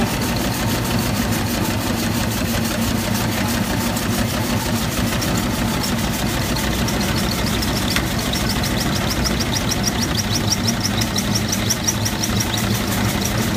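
Steam ploughing engine running with a fast, even mechanical beat. From about halfway through, a short high squeak repeats several times a second.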